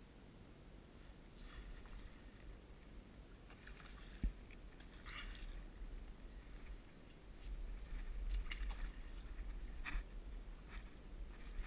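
Hooked steelhead thrashing and splashing at the surface of a shallow creek in short, irregular bursts, over a low rumble. A single sharp knock comes about four seconds in.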